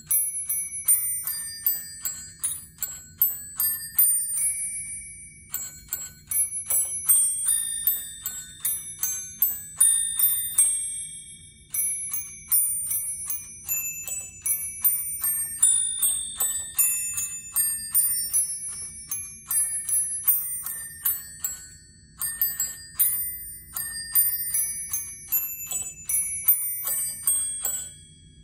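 Holiday Glockenspiel musical Christmas ornament, a hanging chain of small brass bells, chiming a carol melody in quick struck notes that ring on briefly. The phrases are broken by short pauses.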